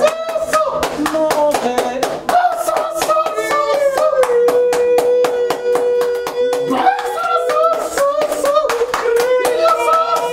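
Group of people clapping their hands in a steady rhythm while voices sing along, with one note held long in the middle.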